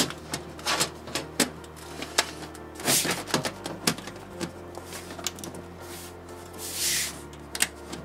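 Irregular clicks and knocks of a metal PC-case side panel being seated and pressed onto the case, with a couple of short scraping slides about three seconds in and near the end. Background music with a steady bass runs underneath.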